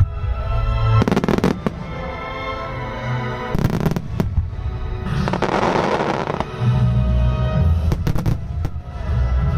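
Starmine fireworks bursting in quick clusters over the music that accompanies the show: shells break about a second in and again near four seconds. A dense crackling runs from about five to six and a half seconds, and a few more bursts come near eight seconds.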